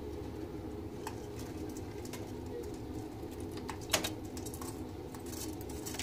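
Ringneck doves cooing low and steadily, with a few sharp clicks, the loudest about four seconds in.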